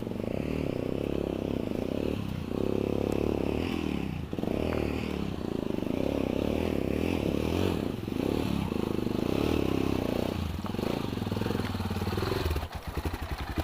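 Adventure motorcycle engine running at low to moderate revs, the revs rising and falling throughout.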